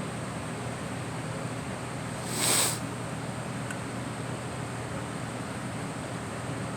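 A single short, breathy cough about two and a half seconds in, over a steady background hum.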